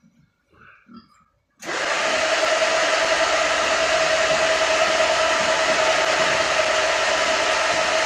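A pig-feeding cart's motor and feed conveyor start abruptly about a second and a half in and run with a steady whir and a steady mid-pitched tone as feed is delivered down the spout into the troughs.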